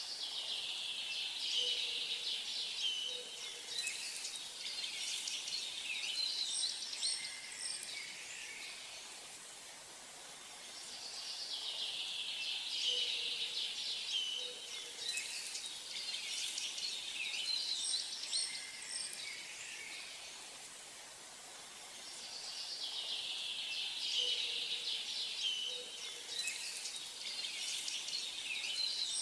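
Birdsong ambience: many small birds chirping and trilling, from a background recording that repeats the same stretch about every 11 seconds.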